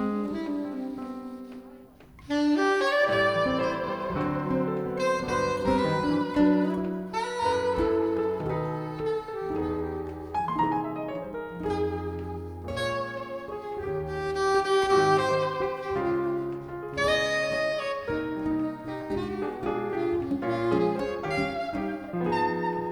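Live jazz: soprano saxophone playing melody over piano accompaniment. The music thins out briefly about two seconds in, then the full ensemble comes back in at once.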